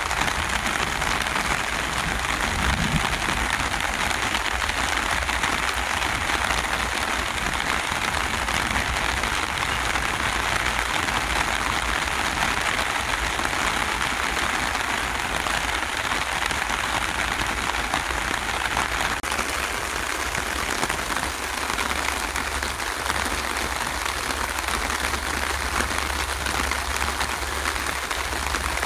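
Steady rain falling on plants and ground, an even hiss.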